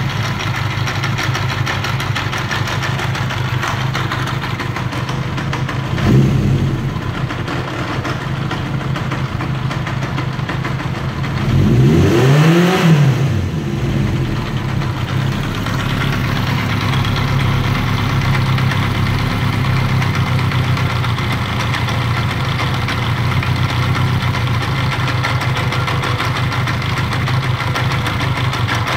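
Kawasaki KZ750 motorcycle engine with a rough idle, blipped briefly about six seconds in and revved up and back down to idle around halfway through. It keeps running.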